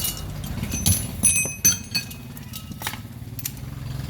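A few sharp metallic knocks and clinks with a brief ringing after each, clustered about one to two seconds in, as metal pump parts or tools strike each other, over a steady low hum.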